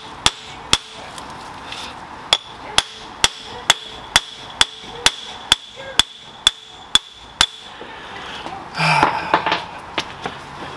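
Hammer blows on a nut threaded onto the end of a Saab 9-3's CV axle shaft, driving the shaft into the intermediate shaft. Metal rings at each strike. Two blows come first, then after a pause a steady run of about a dozen strikes, about two a second, and a brief clatter near the end.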